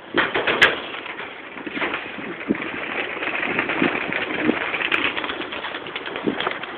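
A flock of domestic pigeons flying close by, their wings clattering loudly about half a second in, then fluttering and flapping steadily.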